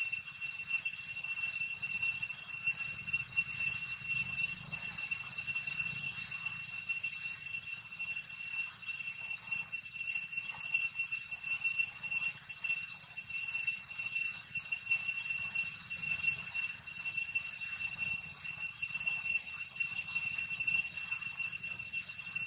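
Cicadas droning in one steady, unbroken high-pitched whine, with a faint low rumble underneath.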